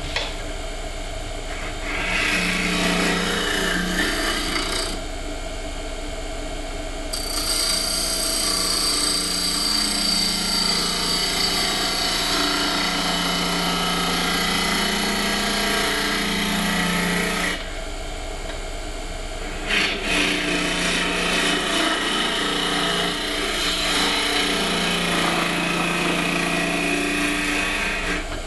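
Turning tool hollowing the end grain of a spinning olive-wood box blank on a lathe: a rough scraping cut in three long spells, with the lathe's steady hum in the short pauses between.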